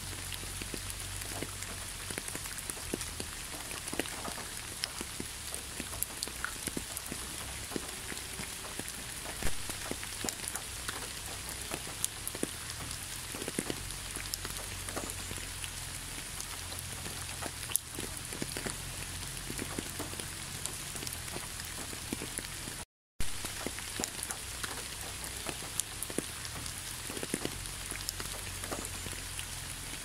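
Steady rain falling on a wet asphalt road and fallen leaves: an even hiss dotted with many separate close drop hits. The sound drops out completely for a split second about three quarters of the way through.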